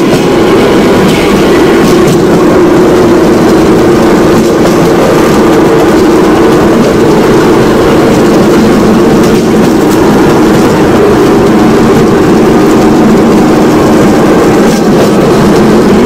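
Motorrodillo, a motorcycle-powered rail cart on ball-bearing wheels, running steadily along railway track: the motorcycle engine under way mixed with the rolling of the bearing wheels on the rails, loud and unbroken.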